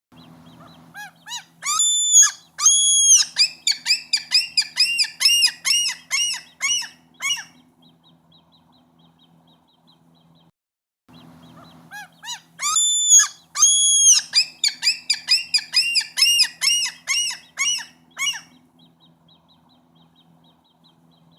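Gull yelling out its long call, twice. Each bout opens with a couple of long drawn-out cries, then breaks into a quick run of short notes at about three or four a second before stopping, with a pause of a few seconds between the bouts.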